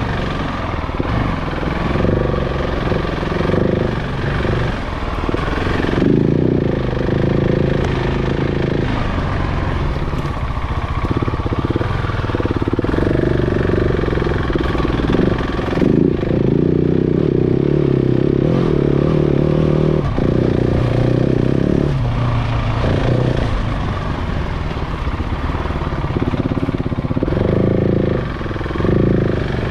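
KTM 690 Enduro's single-cylinder engine under way off road, its pitch rising and falling repeatedly as the throttle is opened and closed, with a few brief knocks.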